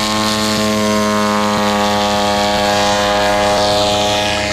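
Spoonbill UAV's propeller engine running steadily at high power during takeoff: a loud, steady-pitched engine note with propeller noise.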